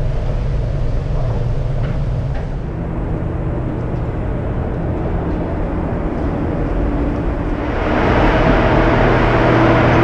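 Steady low hum and rushing noise of the Hoover Dam power plant's hydroelectric turbine-generators, strong enough to make the floor vibrate. About eight seconds in it grows louder and brighter as the generator hall opens up.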